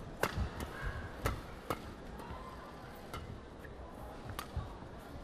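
Badminton rally: sharp racket strikes on the shuttlecock, several in the first two seconds and another near the end, with low thuds of the players' footwork on the court.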